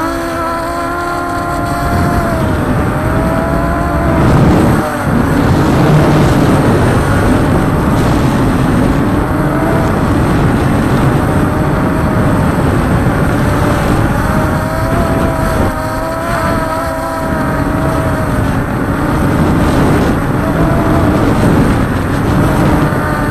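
Multirotor drone's motors and propellers whining, several tones wavering up and down in pitch together as it manoeuvres, over a steady rushing noise.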